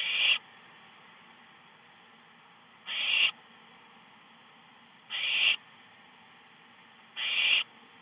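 Barn owl nestlings giving four short rasping hiss calls, each about half a second long and a few seconds apart. This is the food-begging 'snore' typical of barn owl chicks.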